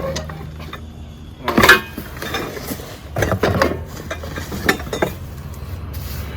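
Metal parts of a hand lawn mower being handled while it is unpacked: a string of separate clinks and knocks, the loudest about a second and a half in.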